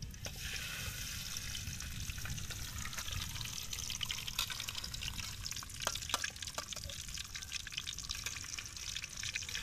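Whole catfish sizzling and crackling in hot oil in a wok, the sizzle setting in as the fish goes into the oil and then running steadily, with a few sharper pops.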